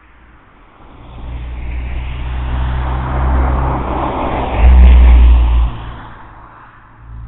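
A road vehicle passing close by on the street. It grows louder over a few seconds, runs loudest with a deep rumble about two-thirds of the way through, and then fades away.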